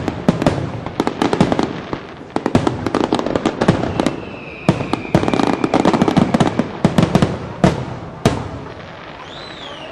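Fireworks display: aerial shells bursting in a dense run of rapid cracks and bangs, with a thin steady whistle about four seconds in. The bangs thin out near the end after one last loud bang.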